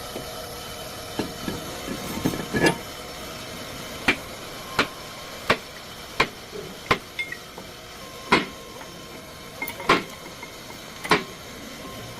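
A series of about ten sharp knocks, irregularly spaced roughly a second apart, over a steady hum, typical of tool strikes during front brake work.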